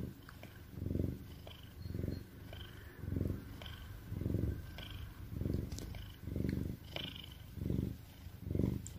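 Oriental shorthair cat purring as it dozes off, the low purr swelling and fading with each breath about once a second.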